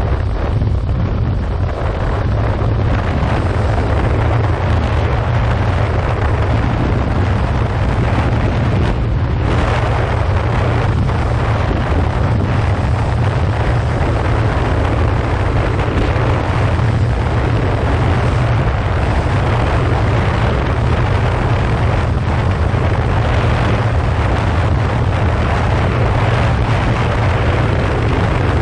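Steady wind rushing over the microphone at riding speed, over the low drone of a 2015 Yamaha FZ6R motorcycle's inline-four engine.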